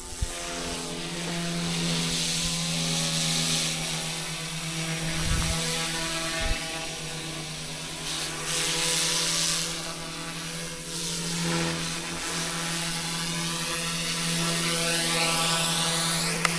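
Eachine E120S RC helicopter in flight: a steady motor and rotor whine holding one pitch, with a rushing rotor noise that swells and fades several times.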